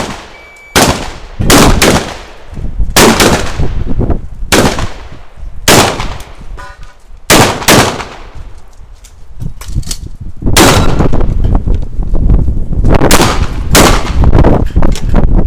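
Shotgun fired in a rapid string of loud shots, some in quick pairs, with short pauses between groups; the shots come almost back to back over the last few seconds.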